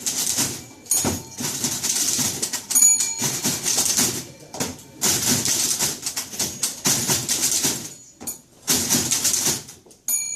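Manual typewriters typed in dense rhythmic bursts, keys and typebars clattering, with short pauses between phrases. The carriage-return bell rings a few times, once about three seconds in and once near the end.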